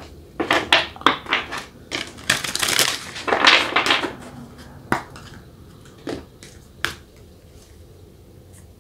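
A deck of angel oracle cards being shuffled by hand: a run of papery rustling and flicking for about the first four seconds, then three single soft clicks as cards are handled and one is drawn.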